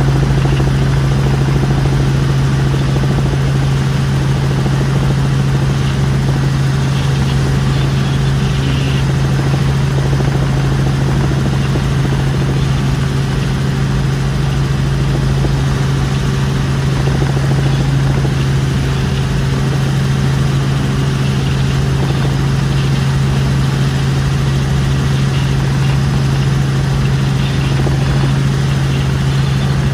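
Helicopter in cruising flight heard from inside the cabin: a steady, loud drone of rotor and engine, with a strong low hum under a rushing noise.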